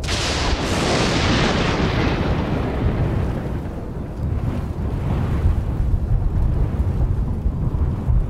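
Thunderclap: a sharp crack that fades into a long, low rumble, with a second, weaker roll of thunder about four to five seconds in.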